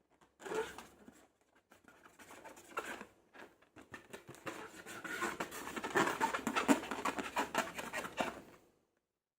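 Slime being squeezed and worked by hand: a run of wet clicks and crackles that grows denser and louder from about halfway, then stops shortly before the end.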